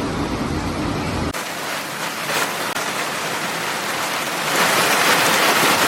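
Storm noise from two clips: first a steady hiss over a low rumble, then, after a sudden cut about a second in, the dense even hiss of heavy rain pouring down, growing louder near the end.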